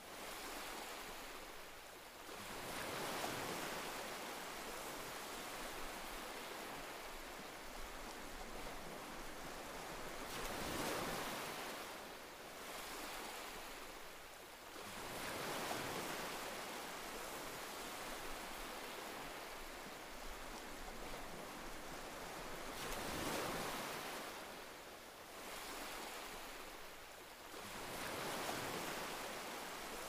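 Sea surf: waves breaking, a rushing hiss that swells and ebbs every few seconds.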